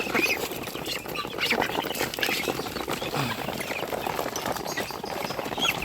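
A flock of farm ducks and chickens calling at once: a dense, overlapping chatter of short quacks and clucks.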